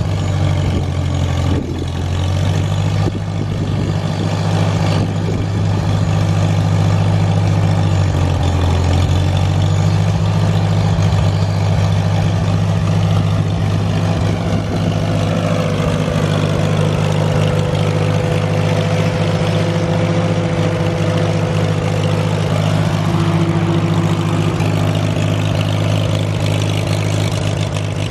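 1951 Farmall H tractor's four-cylinder gasoline engine running steadily at low speed, its note wavering briefly around two seconds and again around eight seconds in.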